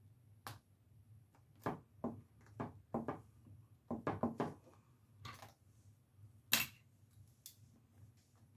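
Craft tools and supplies being handled and rummaged through: a string of irregular short clicks and knocks, the loudest about six and a half seconds in.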